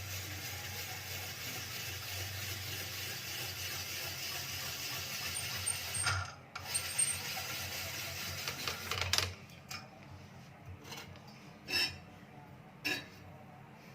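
Spiral potato cutter being turned through a potato, its screw mechanism grinding steadily with a short break about six and a half seconds in; the noise stops after about nine seconds and a few separate knocks follow.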